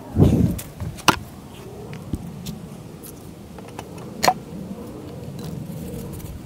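Hand-tool handling at a small engine's carburetor: pliers clicking against a hose clamp and the rubber fuel line as the line is worked off. A dull thump comes just after the start, with sharp clicks about a second in and again about four seconds in.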